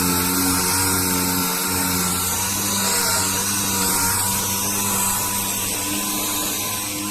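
Power sander running steadily, sanding body filler on a car panel: a steady high whine over a gritty hiss.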